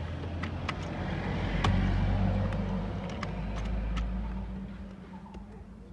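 A motor vehicle's engine rumble swells up and fades away over a few seconds, over a steady low hum. Light sharp clicks of parts being handled come through several times.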